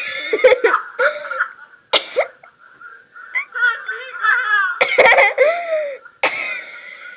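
A person laughing hard and uncontrollably: loud, breathless bursts of laughter broken by cough-like gasps, the strongest bursts near the start, about two seconds in, and in the last two seconds.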